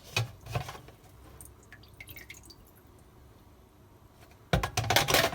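Plastic clicks at the start as the dishwasher's filter is taken out, a few faint water drips about two seconds in, then a loud run of plastic clattering and knocking near the end.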